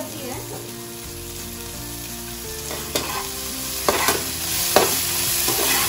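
Diced potatoes and French beans sizzling in oil in an uncovered nonstick kadai, the sizzle growing louder. A few sharp clicks come about three to five seconds in.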